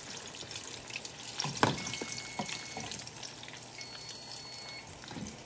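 Chicken wings sizzling and bubbling in a pot on an electric stove, a steady crackling hiss, with a few light clinks of a utensil against the pot about a second and a half in. A faint electronic beep repeats about every two seconds.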